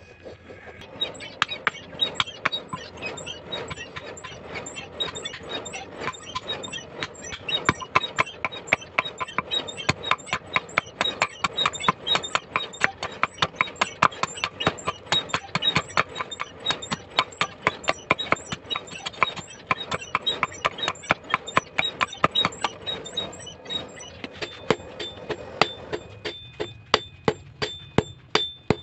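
Hand hammers beating red-hot leaf-spring steel on an anvil. Rapid, closely packed blows each carry a metallic ring, and near the end the blows come more spaced and separate.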